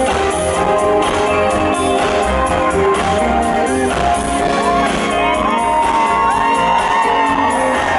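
Live pop-rock band playing, with electric guitar and a steady beat, heard from among the audience. From about halfway through, shouts and whoops rise over the music.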